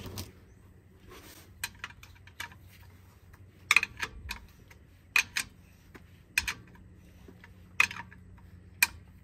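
Scattered sharp clicks and light clinks, roughly one every second, of hand tools and parts being handled, over a faint steady hum.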